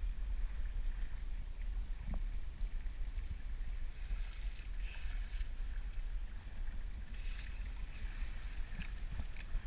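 Steady wind rumble on the microphone over the hiss of water rushing past a sailboat's bow as it moves under way, with a few faint short clicks.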